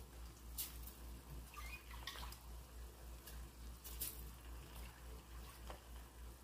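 Wet, washed jasmine rice dropped by hand onto sauce in a frying pan, making a few short wet splats and drips. A steady low hum runs underneath.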